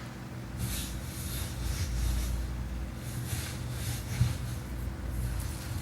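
Clothing-rustle foley: several soft swishes of fabric moving, over a low steady room-ambience rumble.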